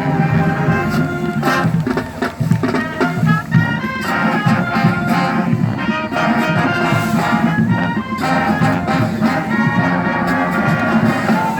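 High school marching band playing: brass melody with trumpets and trombones over drums, with sustained and moving notes and steady percussion strokes.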